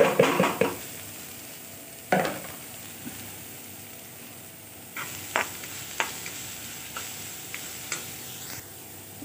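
Grated cauliflower tipped into hot oil in a kadhai, sizzling and frying, then stirred with a metal spoon. A loud rush as it goes in, another stirring stroke about two seconds in, and a few sharp scrapes and taps of the spoon on the pan later, over a steady low sizzle.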